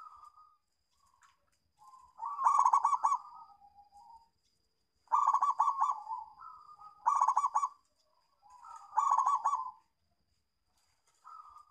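Zebra dove (perkutut) cooing: four loud phrases of quick, rolling coos, with softer single coos between them.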